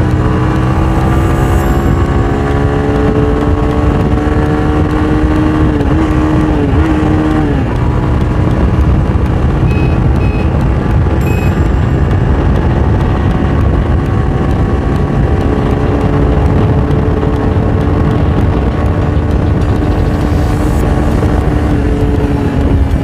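Bajaj Avenger 150's single-cylinder engine pulling hard at highway speed, its pitch climbing slowly, dipping briefly twice about six to seven seconds in, then holding steady and rising again. A dense rush of wind and road noise runs beneath it.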